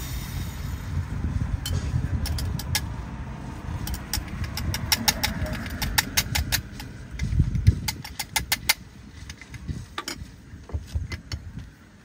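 A motor vehicle engine running close by, a low rumble that swells about seven seconds in and then fades. Over it come quick, sharp metal clinks from a spoon stirring in a small stainless steel cup and from the steel cups touching.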